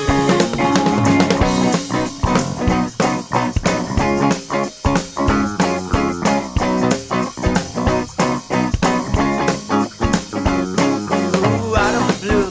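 Instrumental rock band passage: electric guitar and bass over a drum kit keeping a steady beat, with no vocals.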